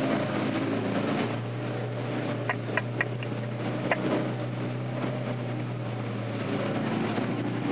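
Off-road 4x4's engine running steadily as it drives through a river ford, heard from inside the cab, with water rushing and splashing against the vehicle. A few sharp knocks come between about two and a half and four seconds in.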